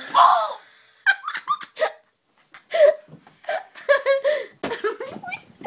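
Voices laughing and making wordless vocal noises in short spurts, with a brief pause about two seconds in.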